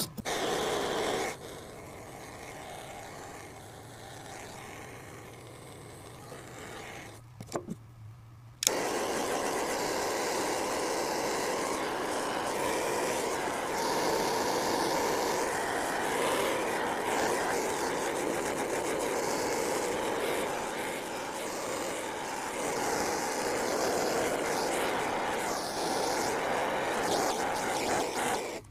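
Handheld gas torch lighting with a sharp click about nine seconds in, then burning with a steady hiss as it heats steel nuts to force a heat patina on them. Before it, fainter shop noise and a few small clicks.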